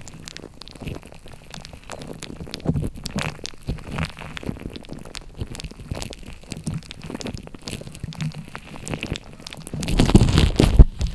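Slime being squished and pressed by hand, making a stream of small wet clicks and crackles that get louder and denser near the end.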